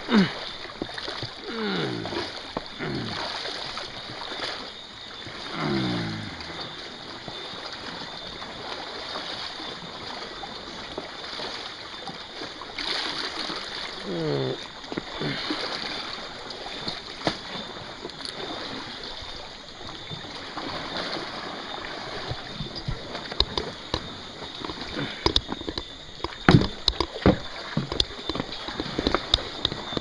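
Small sea waves lapping and splashing at the shoreline under a steady hiss. Several short sounds slide down in pitch in the first few seconds and once more around the middle, and a run of sharp clicks and knocks comes near the end.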